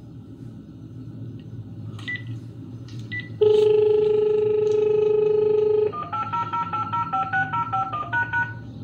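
Telephone being dialled: a few short key beeps, then a steady dial tone for about two and a half seconds, then a quick string of touch-tone (DTMF) digits as the number is keyed in.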